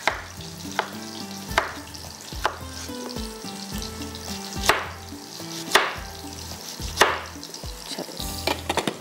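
A chef's knife slicing through a red onion onto a wooden cutting board: a sharp knock on the board about every second, then a quick run of lighter taps near the end, over a steady frying sizzle.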